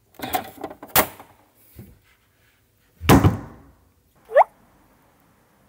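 A circuit breaker in a household consumer unit being switched on with a sharp click, then a thud as the panel's plastic cover is shut, followed by a brief squeak that rises in pitch.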